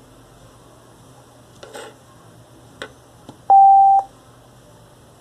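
A Xiaomi Square Box 2 Bluetooth speaker gives one steady beep of about half a second, the tone that signals it has paired with the phone. A couple of faint handling clicks come before it.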